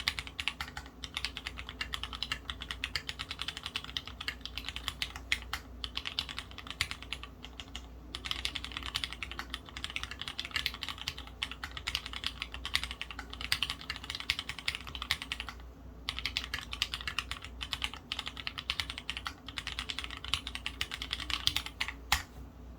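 Fast, continuous typing on an Orion v2.5 mechanical keyboard with lubed Gateron Merlot tactile switches, a half FR4 top-mount plate, Cherry stabilizers and Leopold keycaps: a dense run of keystroke clacks with brief pauses about 8 and 16 seconds in.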